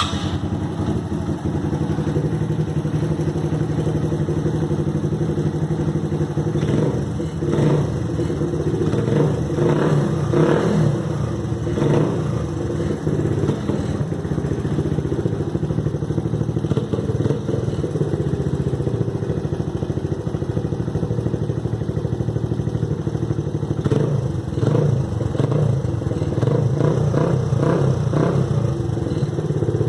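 Suzuki Intruder 125's single-cylinder four-stroke engine running through an aftermarket Fortuna exhaust with an oval tip, a steady rumble. Uneven spells of sharper pulses come about a quarter of the way in and again near the end.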